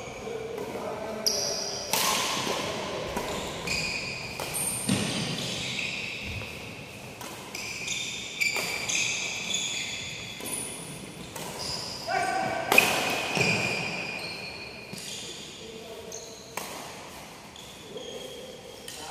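Badminton rally: sharp racket strikes on the shuttlecock, each echoing in a large hall, with sneakers squeaking in short high chirps on the wooden court.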